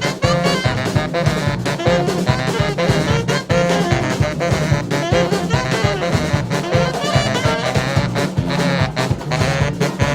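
Live brass band playing a fast tune, horns over a steady quick drum beat.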